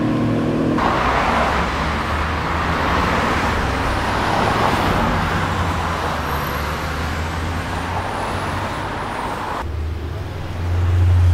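Brabus-tuned Mercedes car with its engine running under a steady rushing noise, from about a second in until near the end. The rush then cuts off suddenly and a deep engine drone grows louder.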